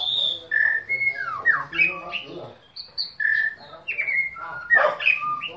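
White-rumped shama singing: a quick, varied run of loud whistled notes, several sliding down in pitch, one after another with short breaks.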